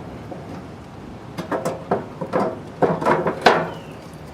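A quick run of knocks and clatters, about eight in two seconds with the loudest near the end, as things are handled on a gas grill.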